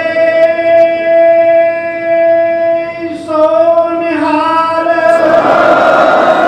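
Sikh devotional singing: men's voices singing together over a harmonium, holding long steady notes that step to new pitches a few seconds in. Near the end it spreads into a fuller sound of many voices.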